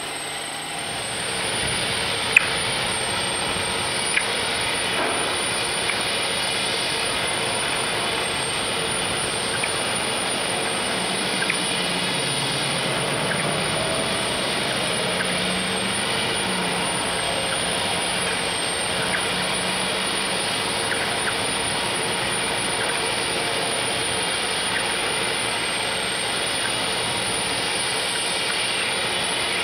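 Steady drone of distant machinery over a constant hiss, with a thin high whine throughout and a few faint clicks; a low hum wavers briefly around the middle.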